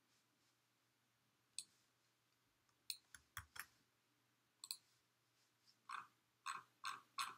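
Quiet computer mouse clicks: a few scattered clicks, then a steadier run of clicks about two a second near the end.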